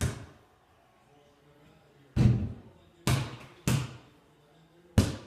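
Basketball bouncing on a hard indoor floor: five separate thuds, each with a short echoing tail. The first comes at the start, the next about two seconds later, then two close together, and the last near the end.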